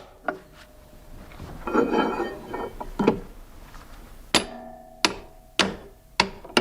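Irregular sharp knocks and clinks from hand tools at work, about seven strikes in all and coming faster in the second half, with a short rough scraping noise about two seconds in.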